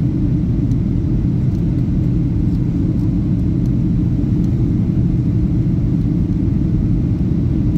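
Steady low rumble of an airliner heard from inside the cabin.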